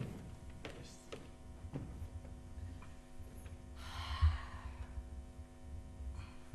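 Quiet stage-hall sound with a steady low hum and a few faint knocks, with a short breathy rush and a soft thump about four seconds in.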